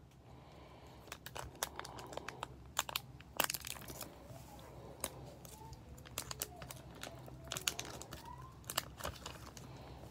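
Foil trading-card booster-pack wrapper crinkling and crackling as it is handled and torn open, a run of sharp crackles starting about a second in.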